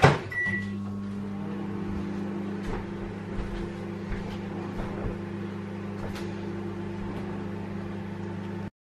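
Microwave oven started with a clunk and a short beep, then running with a steady mains hum; the sound cuts off abruptly near the end.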